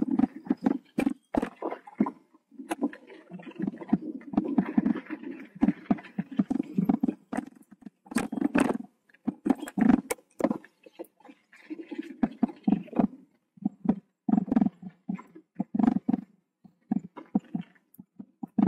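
Mountain bike clattering over a rough dirt trail: a fast, irregular run of sharp knocks and rattles, mixed with gusty rumbling bursts of wind and tyre noise on the camera microphone.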